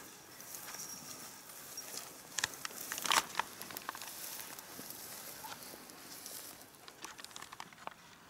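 Footsteps and clothing brushing through tall grass and bushes, with crackles and clicks of stems and twigs; a louder cluster of crackles comes about three seconds in, and a few quieter ones near the end.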